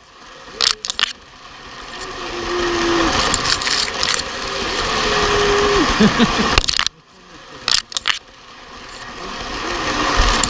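Toy train running on its track: the small electric motor whirring and the wheels rattling along the rails. The noise builds steadily for several seconds, drops out suddenly about seven seconds in with a few clicks, then builds again.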